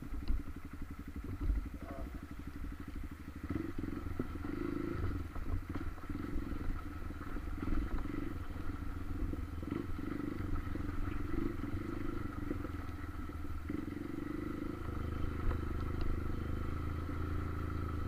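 Motorcycle engine running under way, with scattered clattering knocks as the bike rides over the rough road; the engine note rises a few seconds in.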